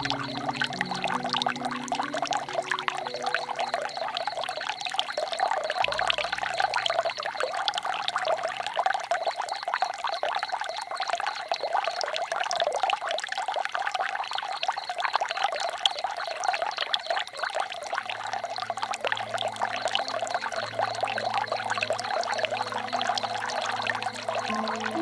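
Running water pouring and splashing steadily, with soft low sustained music notes underneath at times.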